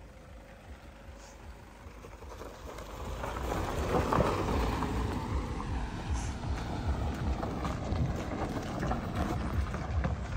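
Car driving slowly on a dirt track: a low rumble of engine and tyres over rough ground, with wind buffeting the microphone, growing louder about three seconds in.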